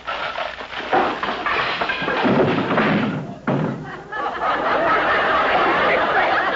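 Radio sound-effect crash of a barn joist being knocked out and timbers coming down: a few knocks, a heavy crash about two seconds in and another hit, then a dense continuous wash of noise from about four seconds in.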